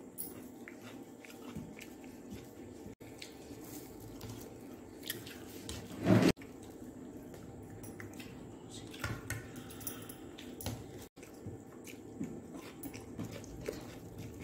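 A person eating rice and chicken curry by hand: fingers squishing and mixing rice on a plate, and chewing, with small scattered clicks and one louder knock about six seconds in.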